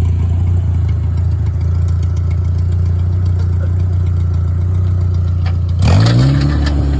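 Small Ford car's engine idling steadily, then revved sharply near the end, its pitch rising and falling back.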